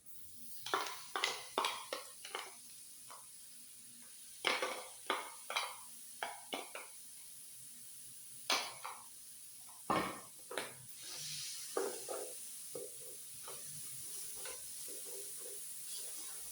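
Metal utensil scraping and knocking on a hot griddle in quick runs of strokes as food is stirred and tossed, with a steady sizzle coming up in the second half.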